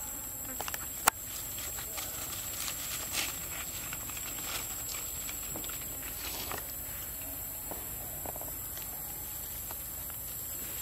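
Young macaques scuffling and walking over dry leaves and twigs: scattered rustles and light steps, with one sharp snap about a second in, over a steady high hiss.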